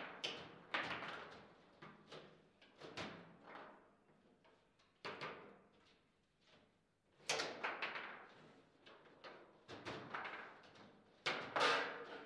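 Table football (foosball) play: the hard ball cracking off the plastic players and the table walls, with rods clacking, in irregular sharp knocks. A burst of the loudest hits comes near the end as a shot goes in for a goal.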